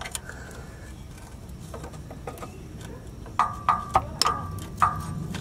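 Small screwdriver prying at a rusted, high-tension CV axle snap ring in its carrier-bearing bracket groove, metal on metal. A few faint ticks at first, then from about three seconds in a quick string of sharp metallic clicks, each with a short ring.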